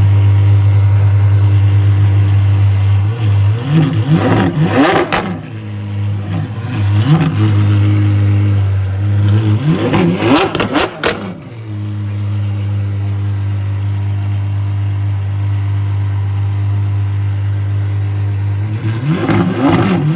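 A performance car engine idling steadily, then revved several times, each rev rising and falling quickly in pitch: three blips a few seconds apart, the last the longest, then another rev near the end.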